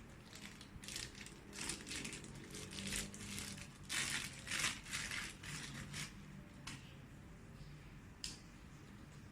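Packaging rustling and crinkling in a run of bursts as parts are lifted out of the box, quieter for the last few seconds, with one sharp click near the end.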